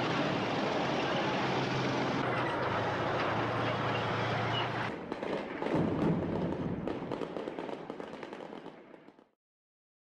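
Steady rumble of street noise with a low hum. About halfway through, a rapid series of sharp bangs and crackles begins, then fades out and stops shortly before the end.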